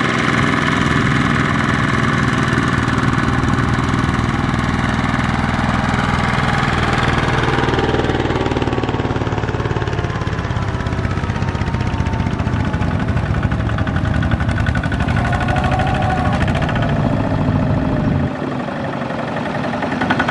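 Two-wheel walking tractor's single-cylinder diesel engine running close by with a steady, rapid beat as it pulls a loaded trailer; near the end the low rumble drops as the engine eases off.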